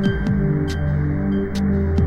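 Ambient electronic music: sustained low synth chords with a beat of deep kick drums and regular high ticks.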